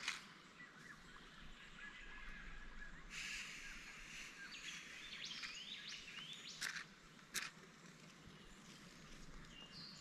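Quiet bush ambience with birds calling, including a run of short rising whistled calls in the middle and a brief call near the end. A soft hiss comes in about three seconds in, and two sharp clicks of camping gear being handled stand out a little after the middle.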